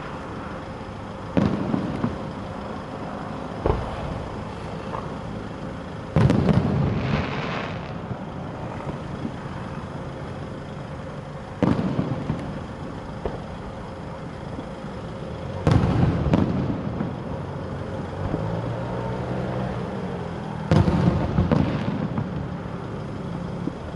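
Fireworks going off: six loud bangs spaced a few seconds apart, several of them trailing on for a second or two after the bang.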